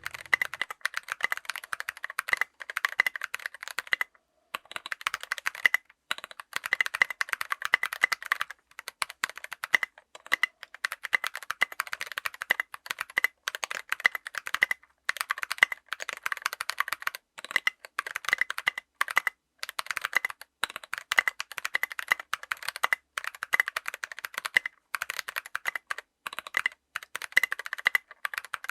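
Continuous fast typing on a mechanical keyboard with stock, unlubricated Kailh BOX Brown tactile switches: quick runs of sharp key clicks and bottom-outs, broken by a few short pauses.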